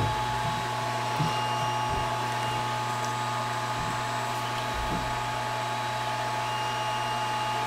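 Steady motor hum with a thin constant whine, with a few soft knocks from handling the resin print on the mat.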